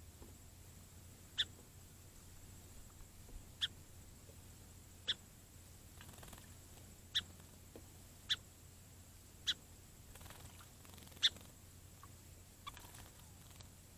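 Song sparrow giving sharp single chip calls, about seven of them, one every second or two, with faint soft rustling between them.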